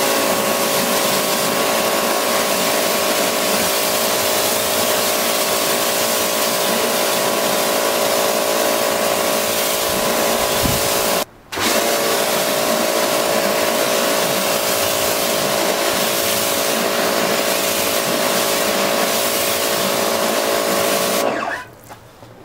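Pressure washer running: a steady motor whine over the hiss of the water jet rinsing a car bonnet. It cuts out for a moment about eleven seconds in, starts again, and stops about a second before the end.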